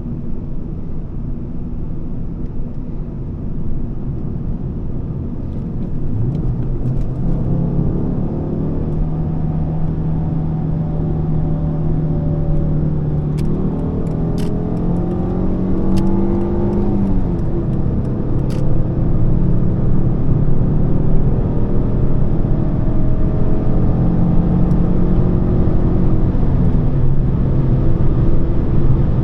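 Volvo S40's 2.4-litre five-cylinder petrol engine pulling under acceleration over steady tyre and road rumble, heard from inside the cabin. Its note climbs slowly, falls sharply at an upshift about halfway through, then holds and climbs again.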